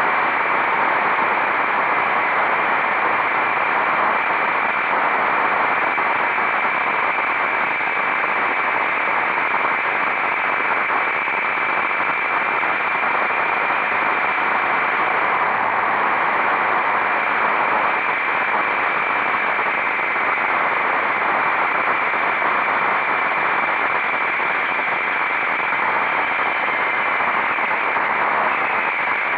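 Steady rushing wind and road noise of a motorcycle at speed on an onboard camera microphone, with a faint steady whine.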